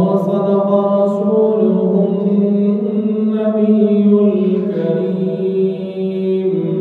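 A man chanting a melodic religious recitation into a headset microphone, one long phrase held on sustained notes in a single breath, fading out near the end.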